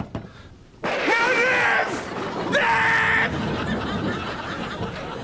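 Two high-pitched shrieks from a man, each about a second long, coming suddenly with a short gap between them. The second is held on one pitch.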